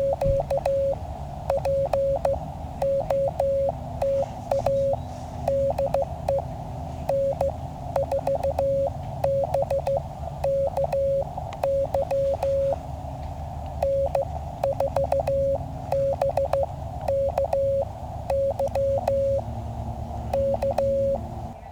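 Morse code (CW) from a QRP Labs QCX mini transceiver's receiver: a single pitched tone keyed on and off in dots and dashes, a station calling on the band. It sits over filtered band hiss, broken by sharp crackles of static.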